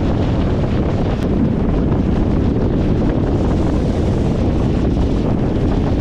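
Wind buffeting the microphone on a fast-moving speedboat, over the steady running of the boat and the rush of water from its wake.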